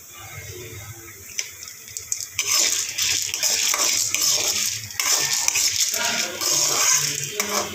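Steel ladle stirring and scraping lentils and dried red chillies around an aluminium kadai as they roast in a little oil, the grains rattling over the metal. It is fairly quiet with a tap or two at first, then from about two and a half seconds in there is continuous fast scraping with a brief pause in the middle.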